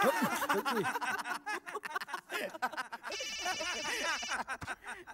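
Several men laughing together. About three seconds in, a mobile phone starts ringing with a high electronic ringtone, and the laughter carries on under it.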